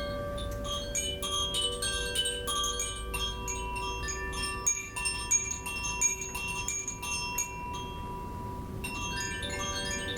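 Koshi chimes being swung, their tuned rods struck irregularly and ringing in many overlapping, bright bell-like tones. The strikes thin out for a moment about seven seconds in and pick up again near the end.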